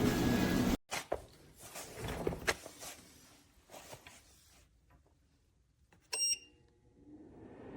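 Portable electric space heater's fan blowing, then cutting off suddenly about a second in; a few clicks and light knocks follow, then a short high electronic beep from its control panel, after which the fan's rush starts to build again near the end.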